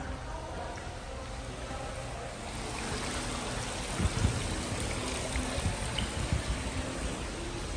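Water splashing in an indoor fountain, a steady rushing hiss that gets louder about two and a half seconds in, with a few low thumps in the middle.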